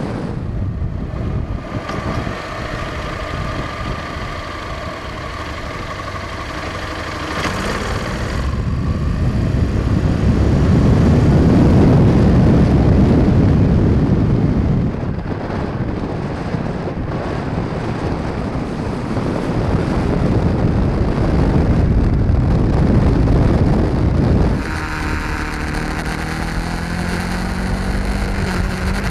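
Motorcycle engines running and passing by. The sound swells to a loud rush around the middle, then changes abruptly near the end to a steady engine hum.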